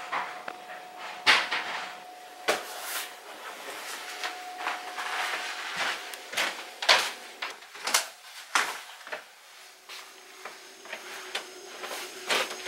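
Footsteps on a wooden floor: irregular knocks and thuds as someone walks through a house, with a faint steady hum underneath.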